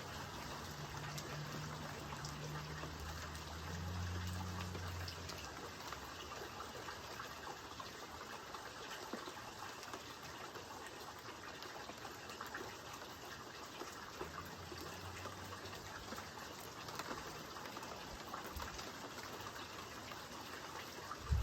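Steady rain falling, an even hiss with scattered drop ticks, and a faint low hum at times.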